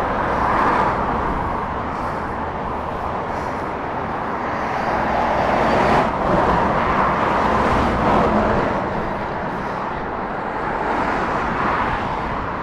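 Dual-carriageway traffic of trucks and cars passing close by on the A14 across the Orwell Bridge: a continuous tyre and engine noise that swells and fades as each vehicle goes past.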